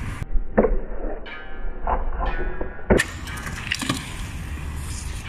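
Skateboard wheels rolling on concrete, broken by several sharp clacks of the board popping and landing on tricks, the loudest about half a second in and about three seconds in.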